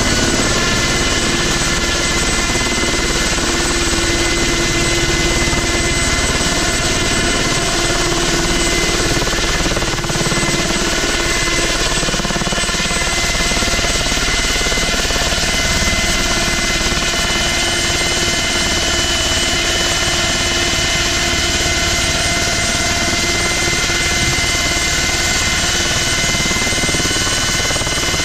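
Ultrasport 496 light helicopter running close by, its engine and main rotor holding a steady speed with no clear rise or fall.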